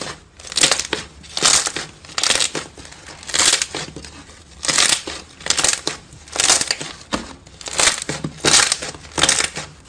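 Hands pressing and kneading a thick, textured slime, a crackly crunch with each press, about once a second.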